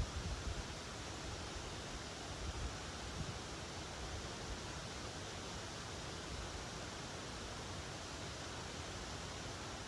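Steady, even rushing noise of an outdoor nature ambience, with brief low rumbles near the start and again around two and a half to three seconds in.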